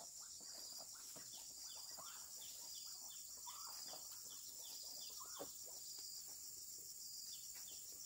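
Steady high-pitched insect chorus, crickets or cicadas, with a pulsing trill and short falling chirps repeated about every half second.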